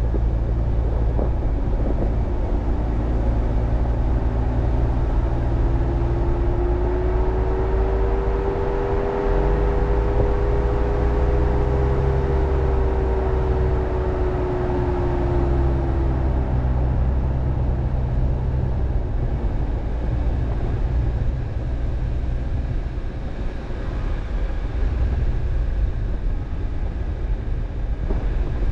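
Car driving on a dirt road: a steady low rumble of engine and tyres, with a humming engine note that swells and bends slightly in pitch through the middle, then fades back into the rumble.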